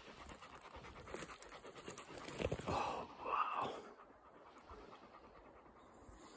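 Dog panting, the breaths clearest around the middle, over faint rustling.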